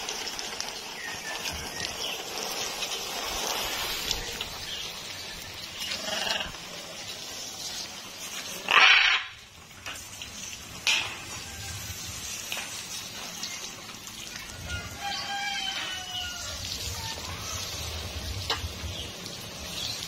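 Water spraying over a blue-and-gold macaw as it is bathed, a steady hiss. About nine seconds in comes one loud, harsh, short call, and around fifteen seconds a longer animal call that wavers in pitch.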